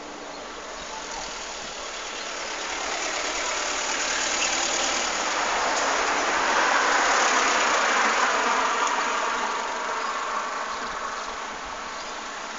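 A road vehicle passing on the street: a steady rush of engine and tyre noise that swells to its loudest about halfway through and then fades.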